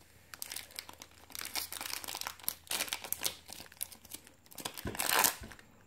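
Foil wrapper of a Pokémon TCG Breakpoint booster pack crinkling in the hands as it is torn open, in many small irregular crackles with a louder burst of tearing about five seconds in.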